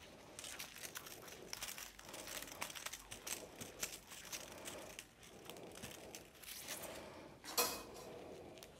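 Gloved hands bending and working the steel armour wires of a steel-wire-armoured cable back and forth to break them off. The sound is faint, irregular crinkling and small clicks, with a sharper click near the end.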